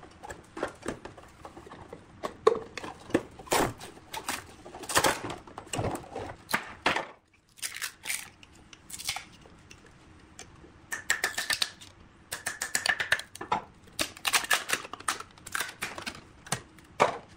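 A blue plastic mould sheet being pried and peeled off a cast resin blank with a hand tool: irregular cracking, scraping and crinkling of stiff plastic, with a short pause a little before halfway and a squeaky scrape around two-thirds of the way through.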